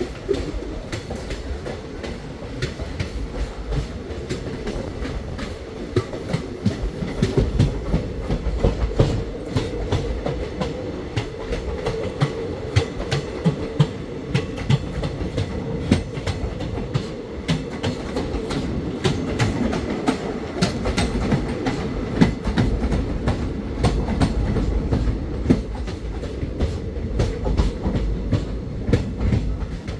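A passenger train's coaches running along the track, heard from on board. There is a steady rumble with frequent, irregular sharp clicks of the wheels passing over rail joints.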